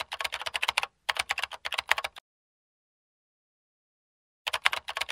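Keyboard-typing sound effect: runs of rapid clicks with a brief break about a second in, stopping at about two seconds, then a short run again near the end.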